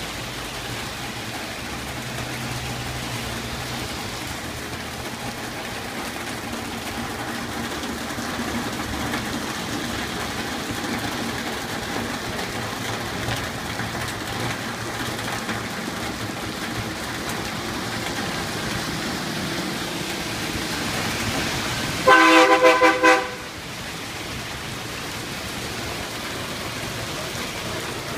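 Heavy rain hissing on a flooded street while vehicles drive through the water. About 22 seconds in, a vehicle horn honks in several quick, loud toots lasting about a second.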